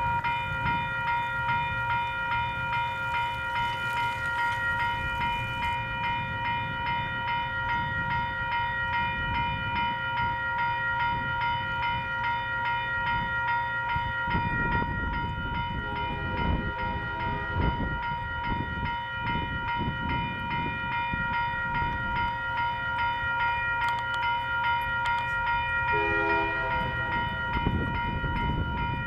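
Railroad grade-crossing warning bell ringing steadily and continuously, the crossing signal activated for an approaching train. A lower-pitched locomotive horn sounds in the distance about sixteen seconds in and again briefly near the end.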